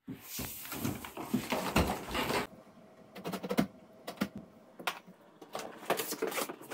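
A large cardboard box being handled and opened: dense scraping and rustling of cardboard for the first couple of seconds, then scattered light knocks and crinkles as the flaps are worked open.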